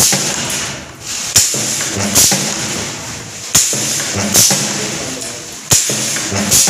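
Pneumatic resistance spot-welding machine for MCB wires cycling about every two seconds. Each cycle is a sharp clack as the air-driven electrodes close, then, under a second later, a short burst of hissing air as they release. This happens three times.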